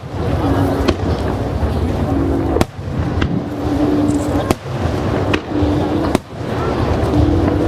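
Aerial fireworks shells bursting in quick succession: many sharp bangs over a continuous deep rumble and crackle of a dense barrage.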